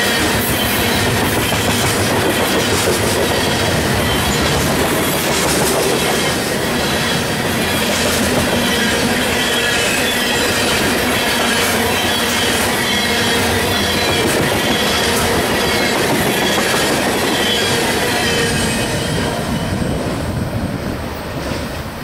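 Coal gondolas of a freight train rolling past: steel wheels clicking over the rails, with a wavering high-pitched wheel squeal over a steady rumble. The sound fades in the last few seconds as the end of the train goes by.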